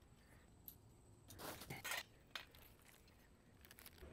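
Faint, scattered metallic clinks and knocks of kennel frame tubes and fittings being handled, with the loudest cluster about halfway through.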